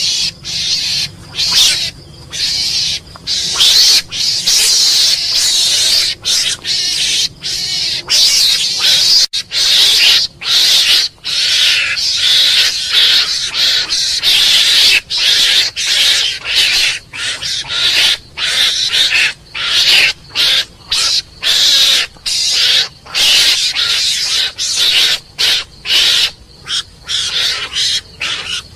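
Mongoose calling: a long run of short, shrill, high-pitched calls in quick succession, roughly one or two a second, with brief gaps between them.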